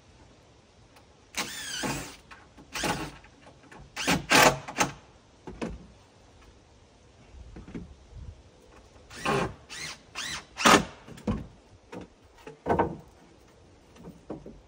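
A handheld electric power tool run in about seven short bursts, each under a second long. In the first burst its whine falls in pitch, as a motor slowing under load does.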